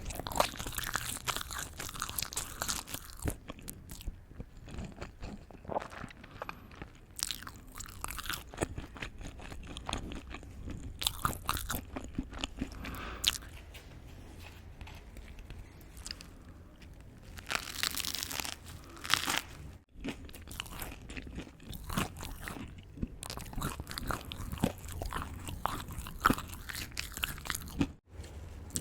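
Close-miked ASMR eating: crunchy bites and chewing, a steady run of sharp crunches, with a louder crunchy stretch about two-thirds of the way through.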